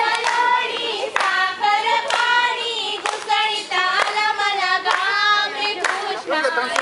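A group of women singing a folk song together, clapping in time about once a second as they dance in a circle.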